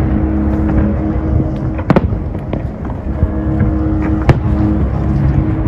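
Fireworks exploding in the air, with sharp bangs about two seconds in and, loudest, about four seconds in, over a steady low rumble and hum.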